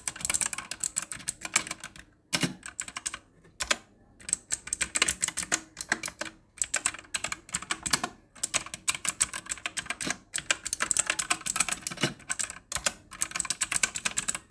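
Typing on a Redgear Shadow Blade mechanical keyboard with blue switches: fast runs of sharp, clicky keystrokes, broken by a few short pauses.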